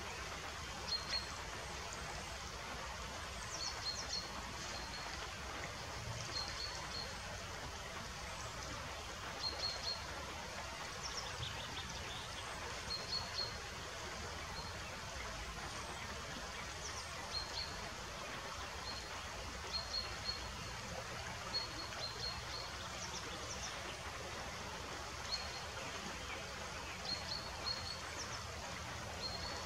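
River water running steadily over rippling shallows, with short high-pitched peeps repeated in twos and threes every second or two.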